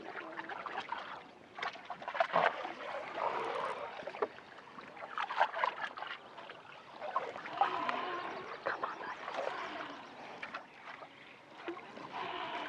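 Water lapping and splashing at the side of an aluminum fishing boat as a lure is swept through the surface in a figure eight, with irregular small clicks and knocks.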